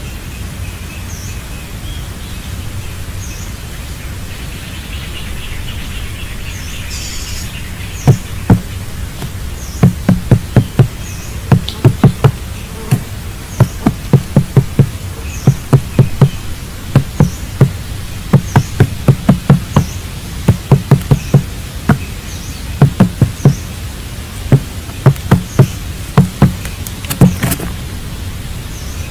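Sharp knocks, often in quick runs of two or three, starting about eight seconds in and going on to the end, over a steady low rumble. A faint high chirp repeats about once a second.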